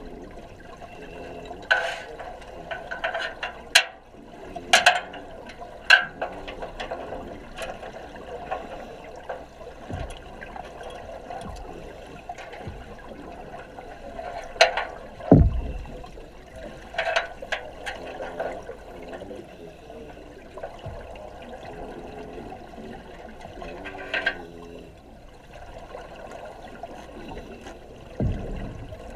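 Underwater sound in a diving tank: a steady rush of water and bubbles, broken by sharp cracks every few seconds and a deep thump about halfway through.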